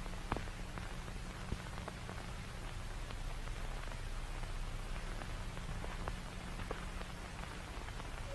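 Low steady hum under static hiss, with a few scattered sharp clicks and crackles.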